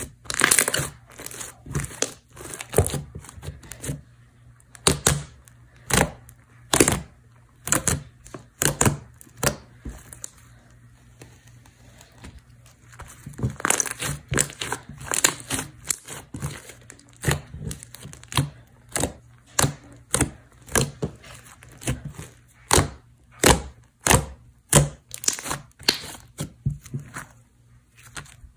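Thick, clicky slime being squished and pressed, giving a run of sharp clicking pops, about one or two a second, with a quieter spell about ten seconds in.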